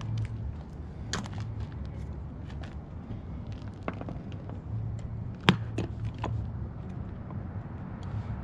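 A few sharp metal clinks and knocks of steering linkage parts being handled and lined up, the loudest about halfway through, over a steady low hum.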